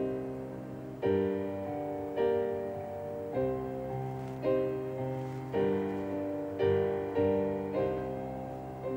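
Slow piano background score: chords struck about once a second, each ringing and fading before the next.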